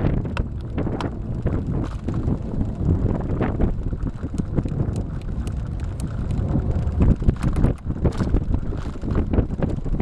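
Wind buffeting the microphone while cycling: a steady low rumble with many short clicks and rattles scattered through it.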